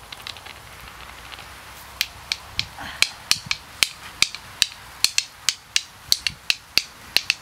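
Two flint stones struck against each other by hand, trying to raise sparks: a few light taps at first, then sharp stone-on-stone clicks in a steady rhythm of about three a second from about two seconds in.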